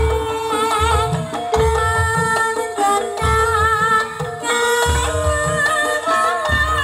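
Live Javanese gamelan music: hand drums beat a steady pattern under layered pitched melody lines, one of them high and wavering.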